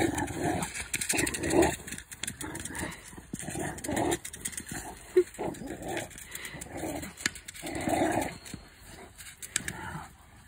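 Rottweiler play-growling in short repeated bursts as it pushes a ball around, with a few sharp knocks in between, the clearest about five seconds in.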